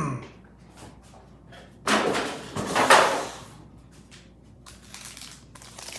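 Packaging being handled: a scraping rustle of cardboard or plastic that starts about two seconds in and lasts about a second and a half.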